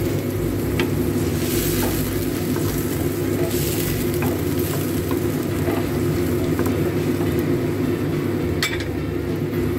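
Cubed pork ribs sizzling and bubbling in liquid in a non-stick wok, stirred with a spatula that clicks against the pan now and then. A steady low hum runs underneath.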